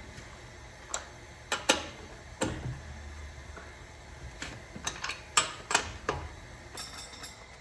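A series of irregular sharp clicks and knocks, a dozen or so spread unevenly, over a low background rumble.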